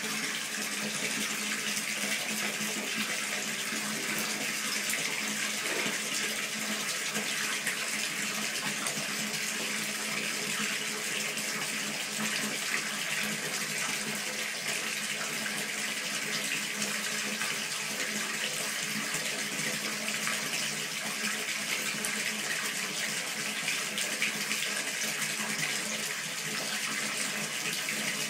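Water running steadily into a bathtub, an even rushing hiss with no breaks.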